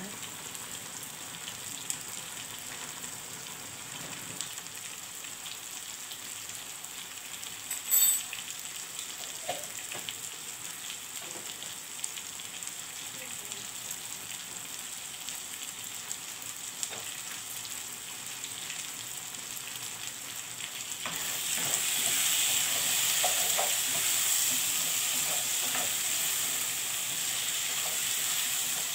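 Diced potatoes sizzling in sauce in an aluminium pot on a gas stove, with one sharp clink about eight seconds in. For the last several seconds the sizzling grows louder as a spoon scrapes and stirs the potatoes in the pot.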